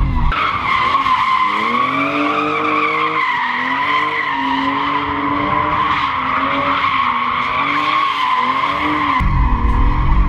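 Car tyres screeching as a BMW drifts, the screech wavering in pitch while the engine revs rise and fall beneath it. Near the end a deep engine rumble comes in more strongly, as heard from inside the car.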